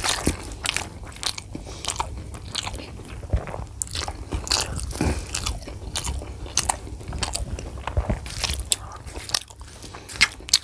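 Close-miked eating: a bare hand mixing rice on a steel plate, and chewing of mouthfuls of rice with crisp bites into a fried aloo chop. The sound is a run of irregular sharp clicks and crackles.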